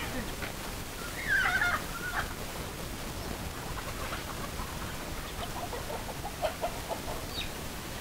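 Domestic chickens clucking as a flock forages, with one louder, wavering call about a second and a half in and a run of short clucks in the second half, over a steady hiss.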